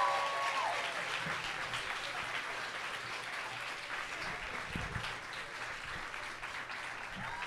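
Audience clapping in a small club, a steady dense patter of many hands. A brief snatch of music cuts off about half a second in.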